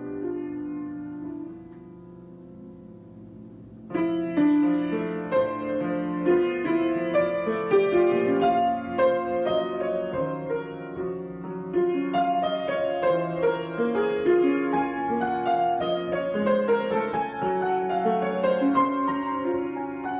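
Solo piano improvisation. A chord dies away and is held softly for a couple of seconds, then about four seconds in the playing comes back louder with a busy flow of notes.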